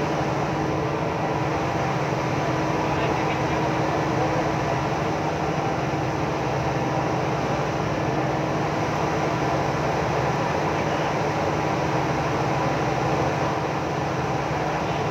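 A crew boat's onboard machinery running with a steady, unbroken drone and a constant hum.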